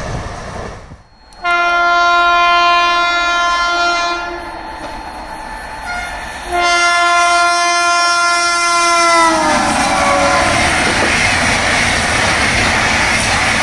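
An Indian Railways express train's electric locomotive sounding its horn in two long blasts, the second sliding down in pitch as the locomotive passes. The train then runs by with steady wheel-and-rail noise and some clickety-clack.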